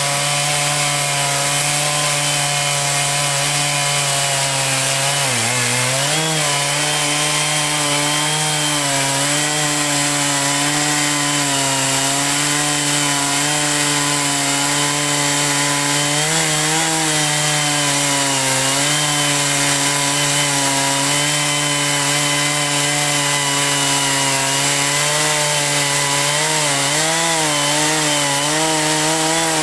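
Portable sawmill's engine running steadily under load as the saw cuts through a log. Its pitch dips briefly about five seconds in and again at the end, as the load comes and goes.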